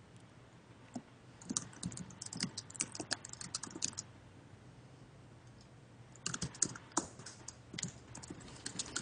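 Quiet typing on a computer keyboard: a lone keystroke, then two quick runs of keystrokes, one about a second and a half in and another about six seconds in.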